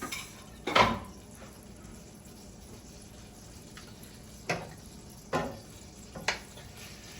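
Meat, smoked sausage and chicken pieces, being added to a pan of hot butter and oil: a steady sizzle broken by several sudden louder sounds of food and utensil hitting the pan, the loudest about a second in.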